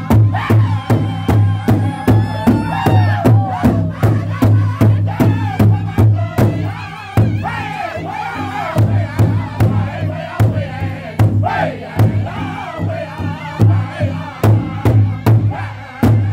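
Powwow drum group singing an intertribal song: several men singing high-pitched in unison over one large shared drum, struck together by the circle of singers about three beats a second. The drumbeat thins and the level drops for a few seconds near the middle, then the full beat returns.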